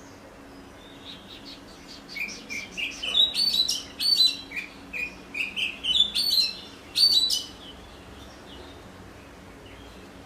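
Oriental magpie-robin singing a run of short, varied whistles and chattering notes, getting louder over a few seconds and then stopping about two-thirds of the way through.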